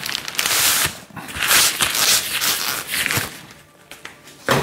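Packaging rustling and crinkling as a fishing rod is unwrapped by hand, in several bursts that are louder in the first three seconds and then fade.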